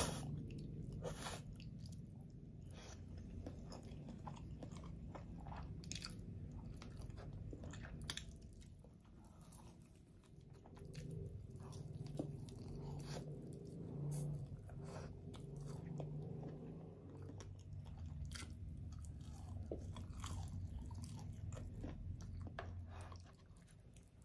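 A person chewing and biting into battered fried chicken and pancit canton instant noodles, with frequent short, sharp crunches.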